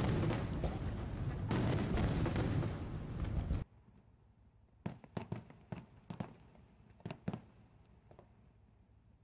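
Fireworks display: loud, dense booming and crackling of shell bursts for the first three and a half seconds, which cuts off suddenly. Then comes a quieter stretch broken by scattered sharp pops and crackles.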